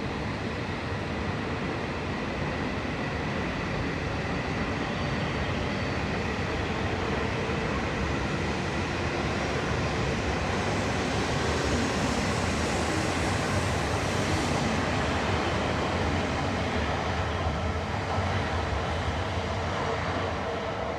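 A train running on the tracks: a steady rushing rumble that builds to its loudest about halfway through, then eases off.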